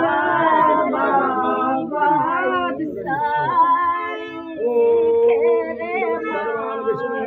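Women singing a Hindi village folk song (dehati geet) unaccompanied: the song sung at the bamboo-planting rite of a wedding.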